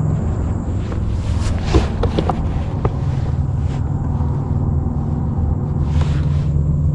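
Boat motor running steadily with a low hum, with a few light knocks and clicks around two seconds in.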